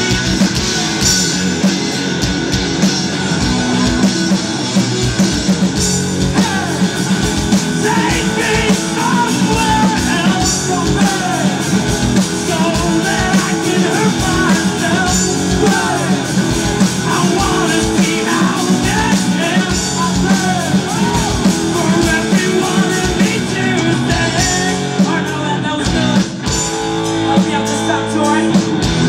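Live rock band playing through a PA: distorted electric guitars, bass and drum kit with a male lead vocal singing over them. The vocal drops out near the end, leaving the guitars and drums.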